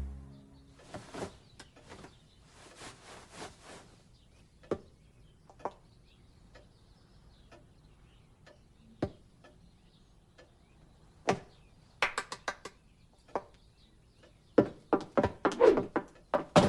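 Sparse short clicks and taps from an animated film's sound-effects track, coming in small clusters: one about a second in, another around twelve seconds, and a denser run near the end, with quiet gaps between.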